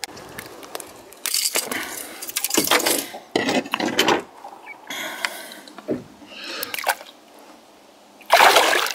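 Handling noises as a pike is held and moved about in a boat: scraping and rustling in irregular bursts. About eight seconds in comes a loud splash of water as the fish is released over the side.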